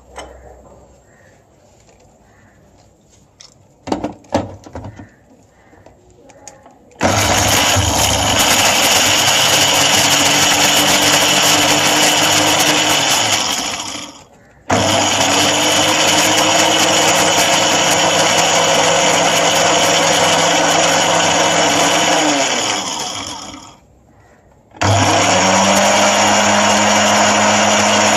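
Electric spice grinder with a small glass jar grinding whole spices (cloves, black cardamom, cinnamon) to powder. After a few light knocks, the motor runs loud in three bursts, pulsed on and off. Its pitch falls as it winds down after each of the first two.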